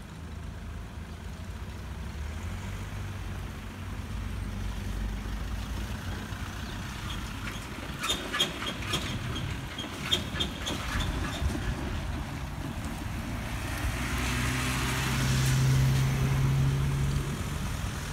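Cars and a van driving over a railway level crossing, their engines running at low speed. About halfway through comes a run of clacks and knocks as they roll over the rails, and near the end a vehicle passes close with a louder engine hum.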